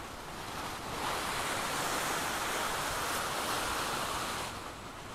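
Surf washing on the shore, a rushing noise that swells about a second in and eases off near the end.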